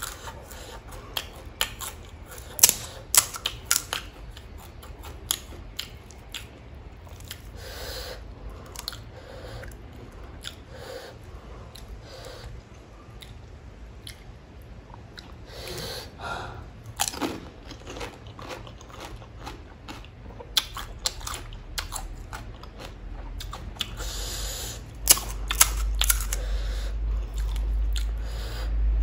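Close-up crunching and chewing of pani puri: the crisp fried shells crack when bitten, followed by wet chewing. The crunches come thickest in the first few seconds. A low rumble comes in near the end.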